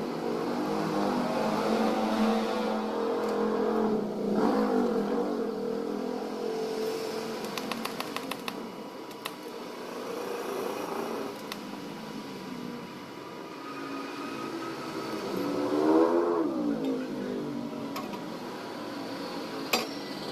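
Motor vehicle engines going by, rising and falling in pitch, loudest about sixteen seconds in. A quick run of clicks comes about eight seconds in.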